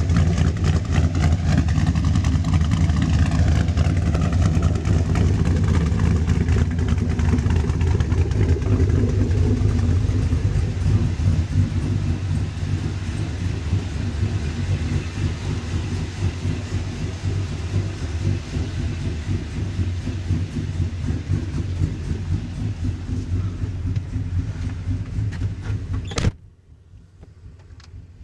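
A 1995 Chevrolet 2500 pickup's 6.0 L Gen IV LS V8, fitted with a Brian Tooley Racing Stage 4 truck cam, idling steadily through true dual exhaust with glasspack mufflers. About 26 seconds in a door shuts and the idle goes on, much quieter and muffled, heard from inside the cab.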